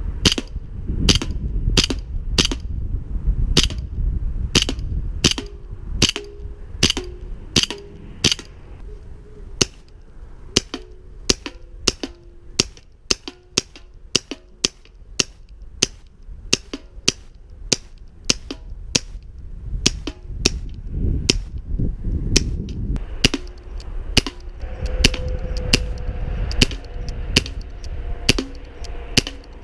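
CO2-powered BB pistols firing shot after shot, sharp cracks at a steady pace of roughly two a second.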